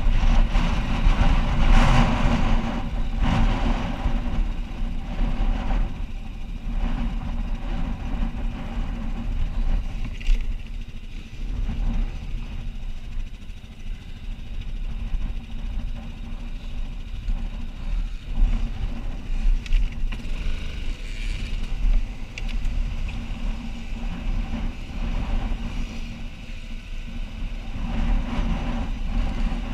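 Quad bike (ATV) engine running. It is louder in the first few seconds, then settles to a steadier, lower idle-like running.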